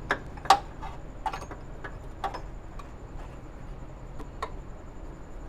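Metal hand tools and parts clinking during engine-bay work: a handful of sharp, irregular clicks and taps, the loudest about half a second in, over a low steady hum.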